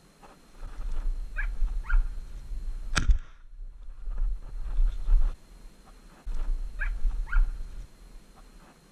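Hunting dogs barking in short high yelps, two pairs of calls, over a low rumble of handling noise on the microphone, with one sharp click about three seconds in.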